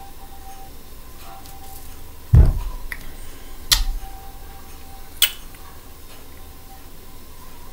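A bottle set down on a table: a low thump about two seconds in, then two sharp clicks about a second and a half apart as it is handled, over a faint steady hum.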